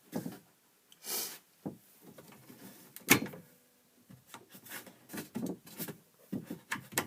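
Hands handling the kayak's battery fittings: a run of small clicks and knocks, a short scraping rush about a second in, and a louder knock about three seconds in.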